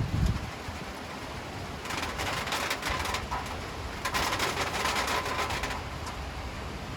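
Steady rain falling in a city at night, with two louder spells of hissing, crackling noise a couple of seconds long, about two and four seconds in.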